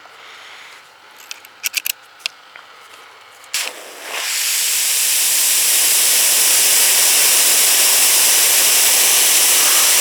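A few sharp clicks, then a Ryobi 40V cordless pressure washer sprays through a 2.0 orifice nozzle. After a brief spurt, a loud steady hiss of the high-pressure water jet starts about four seconds in and holds until the end. The nozzle is too small and builds more pressure than is wanted for car paint.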